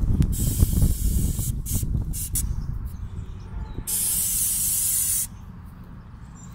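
Aerosol chain cleaner hissing out of the can onto a motorcycle chain: several short spray bursts, then one steady longer spray about four seconds in. A low rumble underlies the first couple of seconds.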